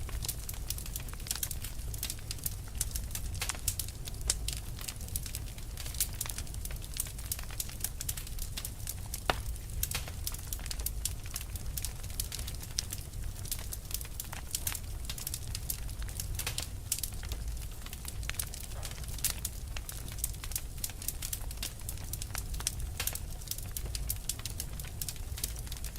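Wood fire burning with dense, irregular crackling and popping over a steady low rumble of the flames.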